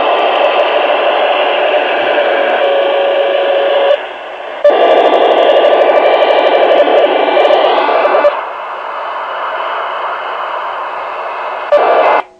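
Royce 639 CB radio receiving on AM channel 36 (27.365 MHz), its speaker putting out loud, dense digital interference noise with a steady tone in it: power-line communication (PLC) interference. The noise drops out briefly about four seconds in, eases off after about eight seconds, and cuts off sharply just before the end.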